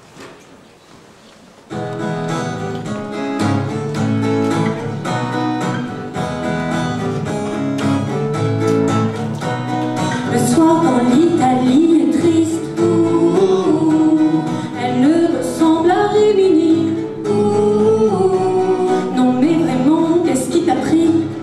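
A live pop-rock band starts playing about two seconds in, with acoustic and electric guitars, bass guitar and keyboard, after a quiet start. A woman's lead vocal comes in about ten seconds in.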